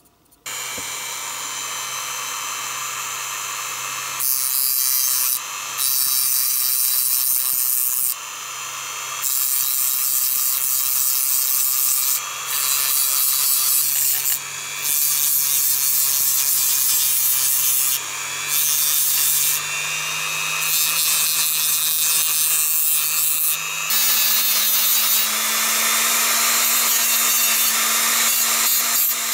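A handheld rotary tool with a small abrasive disc starts about half a second in and grinds the diecast metal body of a toy car. The grinding gets louder while the disc bears on the metal and dips briefly every few seconds as it is lifted off. The motor's hum steps up in pitch, most clearly about three-quarters of the way through.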